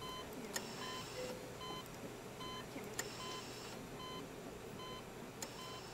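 Hospital monitoring equipment in a neonatal intensive care unit beeping steadily, a short beep a little faster than once a second, with a few faint clicks.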